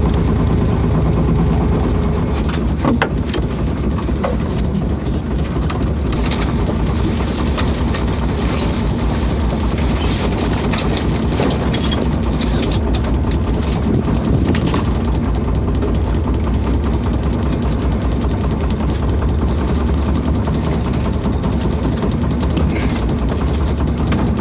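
Small sailing boat's engine running steadily under way, a low, even drone throughout, with a few short knocks and clatters on board.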